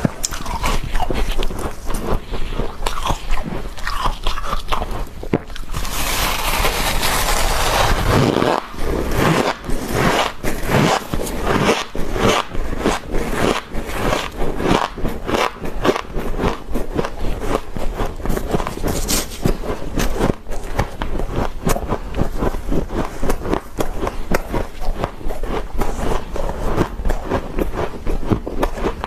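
Soft freezer frost being scraped up with a spoon and crunched and chewed, close to a clip-on microphone. A dense scraping rush comes about six seconds in, followed by a long run of quick, sharp crunches.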